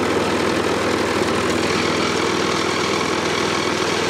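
Hayter rotary lawn mower's petrol engine running steadily with an even, fast chug.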